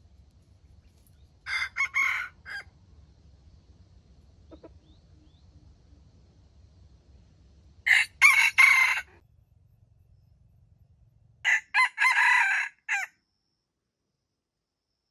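Red junglefowl rooster crowing three times, each a short clipped crow of about a second, the second and third louder than the first.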